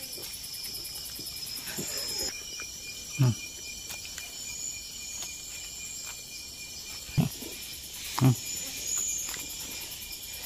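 Night chorus of crickets and other insects, a steady high-pitched trilling. Over it come three short, loud, low sounds that fall in pitch: one about three seconds in and two about a second apart later on.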